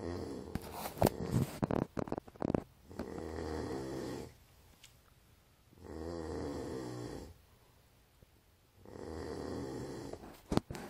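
A dog snoring in slow, regular breaths: four long snores, about one every three seconds. In the first couple of seconds there is a cluster of sharp clicks and knocks, the loudest sounds here, and two more sharp clicks come just before the end.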